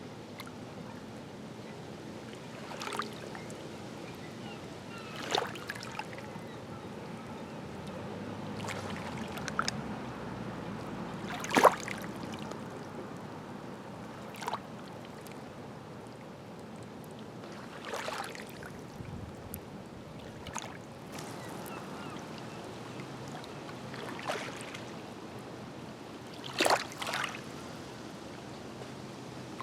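Small lake waves lapping at the shore: a steady wash of water with irregular sharp slaps and splashes every few seconds, one louder slap near the middle.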